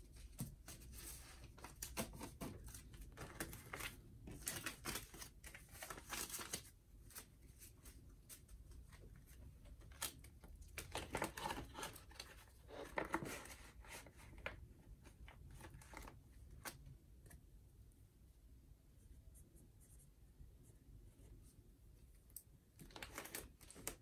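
Banknotes and the clear plastic pockets of a ring budget binder rustling and crinkling as cash is handled and slipped in and out. The rustles are short and scattered, thinning out past the middle, with a few more near the end.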